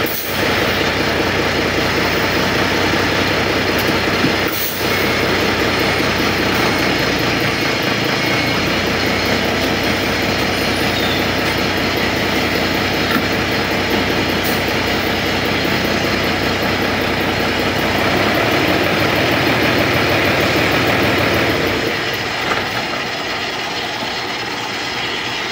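Truck engine running steadily while the clutch is tried out after a new clutch master cylinder kit was fitted to cure a leak. It gets a little louder for a few seconds, then eases off near the end.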